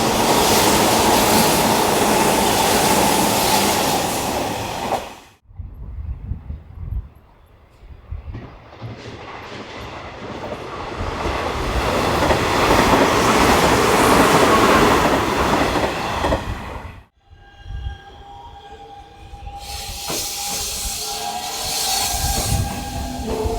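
Hanshin Railway electric trains on the Hanshin Main Line, in three clips joined by sudden cuts. First, a loud train noise. Then a train that builds up to a loud pass and fades. Near the end, a quieter stretch with a steady whine of several tones.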